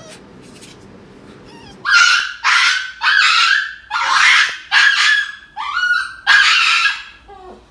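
A dog yelping loudly: about seven sharp cries in quick succession, starting about two seconds in.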